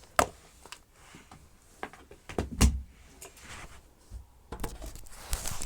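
Handling noise from a Dyson upright vacuum cleaner's plastic parts: sharp clicks and knocks, a heavier thump about two and a half seconds in, then rustling and scraping near the end.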